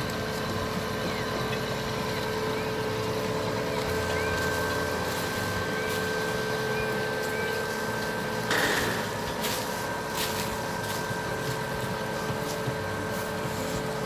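Concrete boom pump truck running steadily with a constant whine while its hydraulic boom unfolds. About eight and a half seconds in there is a short hiss, followed by scattered clicks and knocks.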